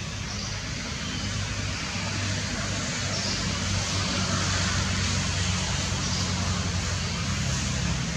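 Steady low rumble of a running engine over a constant hiss, growing a little louder over the first few seconds.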